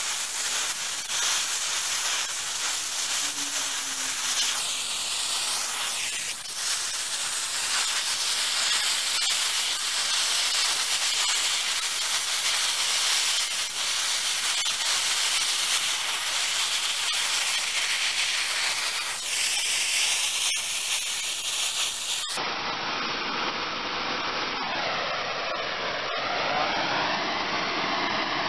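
Oxy-acetylene torch flame hissing steadily as it melts rock into lava. About 22 seconds in, the sound cuts off abruptly and carries on duller, with its top end gone.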